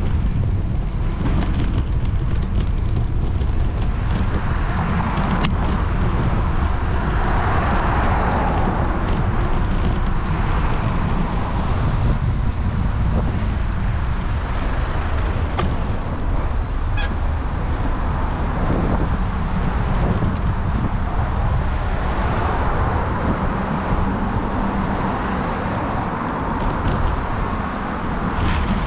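Steady wind rumble on the microphone of a moving rider, with road traffic passing; the traffic swells up twice, once about eight seconds in and again past the twenty-second mark.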